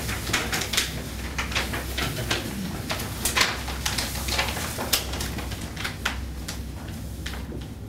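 Irregular small clicks and rustling at close range, over a steady low hum.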